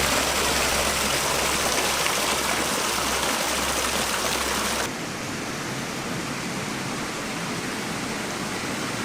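Running water of a stream, a steady rush that drops abruptly to a quieter, duller rush about five seconds in, with a low rumble under the louder first part.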